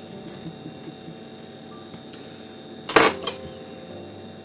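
Kitchen knife slicing through a firm tomato on a wooden cutting board, with one sharp knock of the blade on the board about three seconds in and a lighter one just after.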